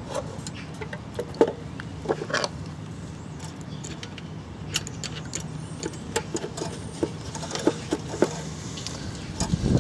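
Scattered light clicks and taps of a fuel tank and its mounting screws being handled and fitted onto a Briggs & Stratton 2 hp engine, over a steady low hum.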